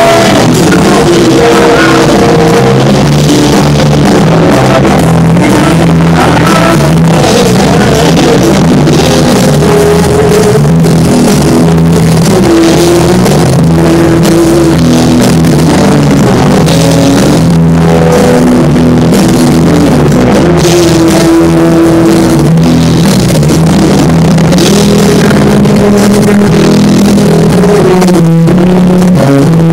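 Live rock band playing loud and without a break: electric guitars carrying a sustained melody over drums, with no singing heard.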